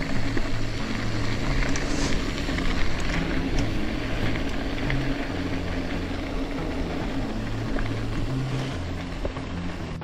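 Mountain bike rolling fast down a leaf-covered dirt trail: steady tyre noise and wind rumble on the helmet microphone, with small clicks and rattles from the bike over roots and rocks.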